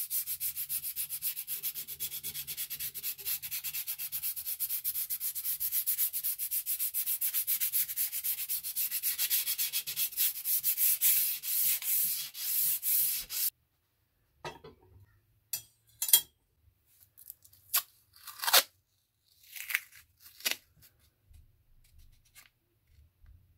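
Sandpaper rubbed by hand along a steel scissors blade in quick back-and-forth strokes, about four a second, slowing near the end and cutting off abruptly a little over halfway through. After that come a few short crackles and rustles of masking tape being handled.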